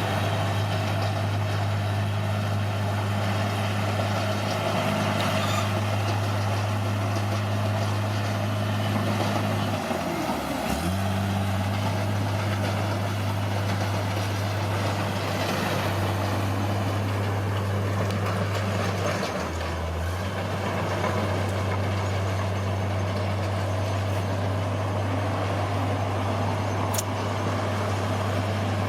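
Bulldozer's heavy diesel engine running steadily, its note dipping briefly twice, once about a third of the way in and again about two thirds of the way in.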